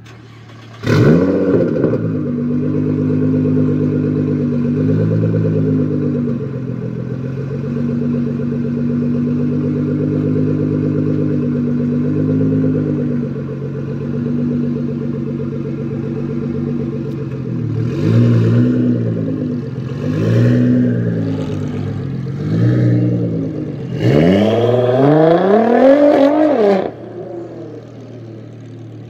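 Nissan GT-R R35's twin-turbo V6 with a custom exhaust starting up with a flare about a second in, then idling steadily. It is given three short throttle blips and then one longer, higher rev before it drops back.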